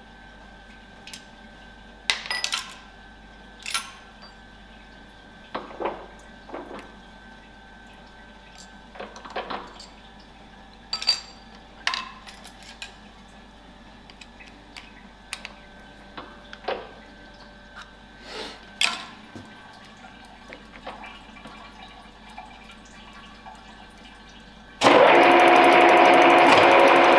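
Scattered metal clicks and taps of a hex key and hand tools as the boring and facing head on a Reiden milling machine is set up. About 25 seconds in, the spindle starts and the head's cutter runs on the workpiece under coolant, a sudden loud steady machining noise with a few pitched tones, facing down the top of the part.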